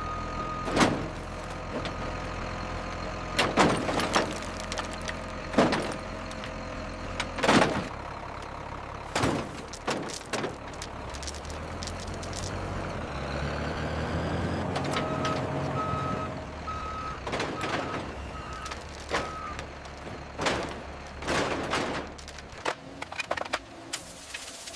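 Workshop sounds: a steady low hum with a dozen or so sharp metallic clanks and knocks scattered through. Past the middle comes a run of about seven short beeps, a little under a second apart.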